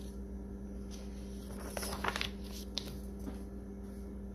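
A picture-book page being turned by hand: paper rustling and a light click about two seconds in, over a steady low electrical hum.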